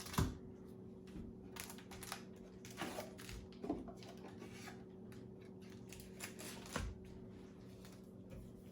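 Trading cards and cardboard box contents being handled: scattered rustles and a few light knocks, over a faint steady hum.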